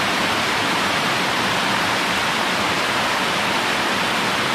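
Small mountain-creek waterfall cascading over rocks: a steady, unbroken wash of falling water.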